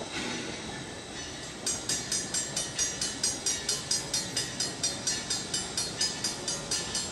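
Narrow-gauge 4-6-0 steam locomotive U.S. 152 working steam: even exhaust chuffs at about four a second, starting abruptly about two seconds in.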